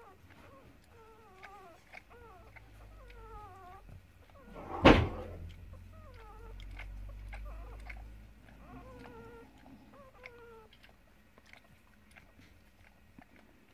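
Newborn puppy giving repeated short, high-pitched squeaks and whines, many falling in pitch, while an adult dog noses at it. One sharp, loud thump about five seconds in.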